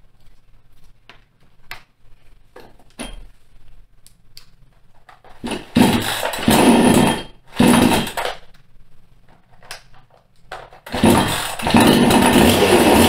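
PIT two-stroke chainsaw being pull-started: a few light clicks as its controls are set, then two short loud bursts as the engine fires and stops, and about eleven seconds in it catches and keeps running. The saw, brought in for not starting, starts.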